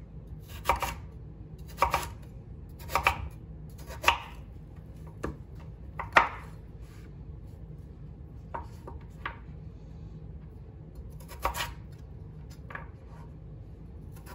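Chef's knife slicing raw sweet potato into fry-sized sticks on a bamboo cutting board. Each cut ends in a sharp knock of the blade on the board, about once a second at first, then fewer and lighter knocks, with a lull midway.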